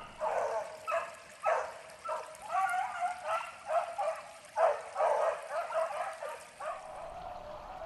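Several beagles baying on a rabbit's trail: a chorus of repeated, overlapping hound bawls that rise and fall in quick bursts, then stop about seven seconds in.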